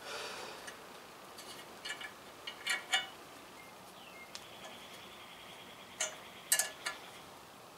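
Hand-turned steel tap cutting threads in a cast-iron exhaust manifold stud hole. A brief rustle at the start, then sharp metallic clicks and clinks with a short ring, in a cluster about two to three seconds in and another around six to seven seconds, with a faint thin squeak between them.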